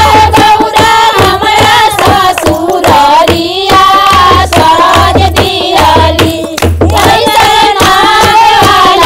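A women's group singing a Bhojpuri Shiv charcha bhajan together, with rhythmic hand-clapping over a deep regular beat.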